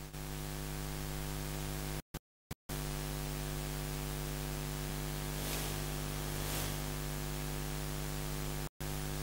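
Steady electrical mains hum with hiss from an open microphone line, no speech. It drops out to dead silence a few times, briefly around two seconds in and once more near the end.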